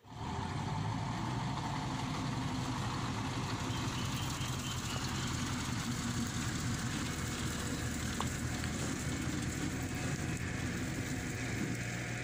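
Diesel engine of a loaded heavy dump truck running steadily as the truck drives past on a dirt track, with an even rushing noise over the engine throughout.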